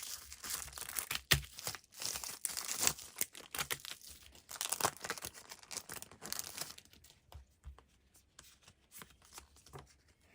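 Packaging being torn open and crinkled by hand: dense rustling and crackling with sharp clicks for about seven seconds, then softer, sparser rustling.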